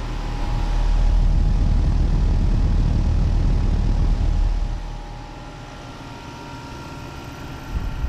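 Outdoor fan of a Day & Night 3-ton, 16 SEER heat pump running in cool mode, its discharge air rushing loudly over the microphone with a deep rumble. About five seconds in it drops to a quieter, steady run with a faint hum.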